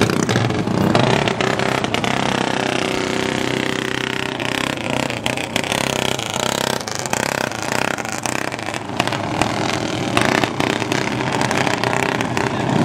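Racing go-kart engine running, its pitch falling steadily over several seconds, with scattered sharp knocks throughout.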